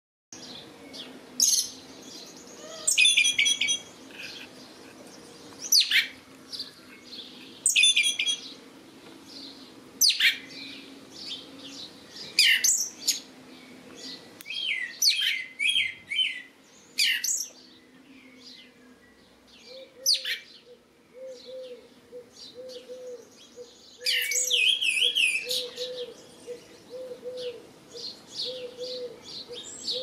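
Red-legged thrush singing: short, high phrases of whistled and chattering notes, one every second or two, with a longer run of song near the end. A low, evenly repeated call sounds underneath in the second half.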